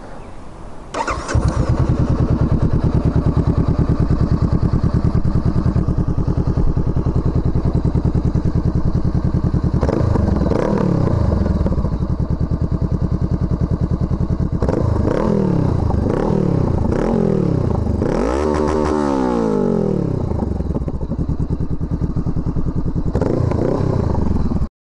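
Honda CBR500R parallel-twin engine with a Coffman Shorty aftermarket exhaust. It is started, catches about a second in and idles steadily. In the second half the throttle is blipped several times, and the revs rise and fall with each blip.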